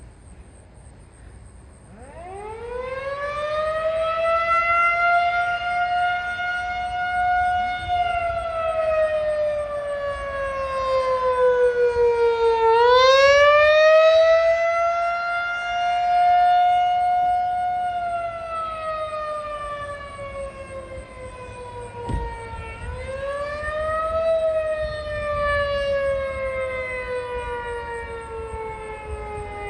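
Federal Signal 2001-SRN rotating warning siren sounding the attack signal for a monthly test, heard from a distance. It winds up about two seconds in, then its single tone slowly falls and rises twice and is falling again at the end.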